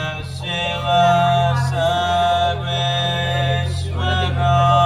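Sung Sanskrit mantra to Shiva, chanted in long held notes over a steady low drone, in two phrases, the second starting about four seconds in.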